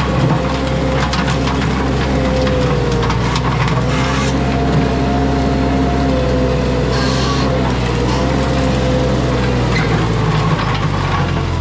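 Mini skid steer running under load with a bush hog attachment spinning, its engine and a whine that wavers in pitch. A couple of brief rushes of shredding noise come through as brush and sticks are cut.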